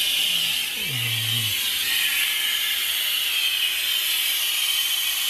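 Steady hiss of compressed air leaking from a Peterbilt 389's air brake system at the drive axle, from a quick release valve that has failed. A brief low sound falling in pitch comes about a second in.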